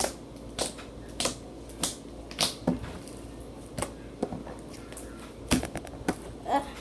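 Large glossy slime being squeezed and handled, giving off sharp wet clicks and pops at an uneven pace, about one or two a second, with a quick cluster near the end.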